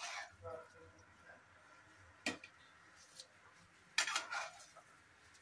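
Metal spoon scraping and clinking against an aluminium cooking pot while rice is scooped, with a sharp clink a little over two seconds in and a louder clink with a short ring about four seconds in.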